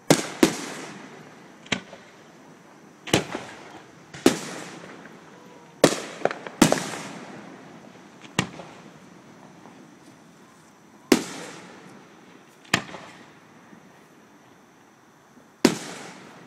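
Aerial firework shells bursting: about a dozen sharp bangs at irregular intervals, some in quick pairs, each fading away in a trailing echo.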